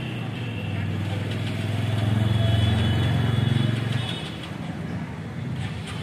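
A motor vehicle's engine running, building to its loudest between about two and four seconds in, then dropping back.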